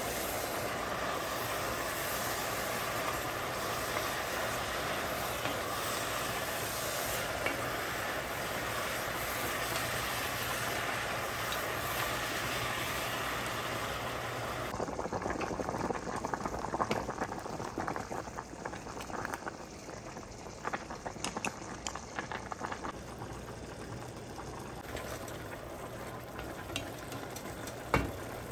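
Sliced mushrooms, onion and garlic sizzling in oil in an enamelled cast-iron pot, stirred with a wooden spoon. A steady sizzle fills about the first half, then drops away abruptly to quieter frying with scattered clicks and scrapes of the spoon, and one sharp knock near the end.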